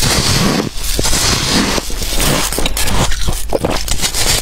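Bites and chewing of a large slab of packed freezer frost, close to the microphone: dense, crackly crunching with a few brief breaks between bites.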